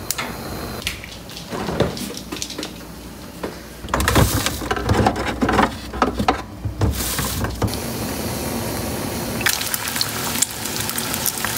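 Home cooking sounds: a pot of stew bubbling on the stove, a few knocks and rustles of handling partway through, and near the end eggs sizzling in a frying pan.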